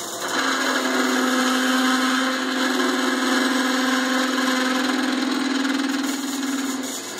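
Metal lathe drilling into a spinning workpiece with a drill fed from the tailstock chuck: a steady low-pitched drone of the cut with hiss over the machine's running noise, starting just after the start and stopping shortly before the end.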